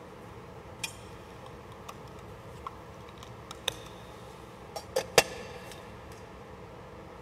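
Small gilded metal altar vessels clinking and tapping as they are handled and set down on the altar while they are cleared after Communion. There are about eight separate light clicks with brief ringing, the loudest a quick group of three near five seconds in, over steady room noise.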